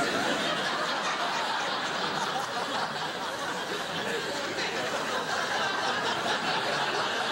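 Studio audience laughing at a punchline: a long, steady wash of laughter from many people.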